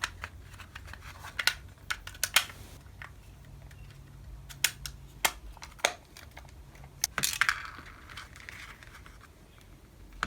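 Parts of a disassembled toy revolver being handled and fitted back together: scattered small clicks and light knocks, with a brief scraping rustle about seven seconds in.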